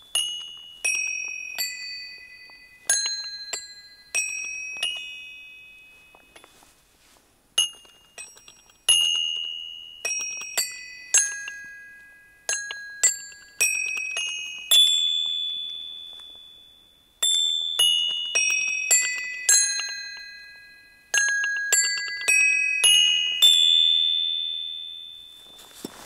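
Set of tuned metal bells struck one note at a time, playing a slow tune of high ringing notes. Each note is left to ring and fade, and there are a couple of short pauses.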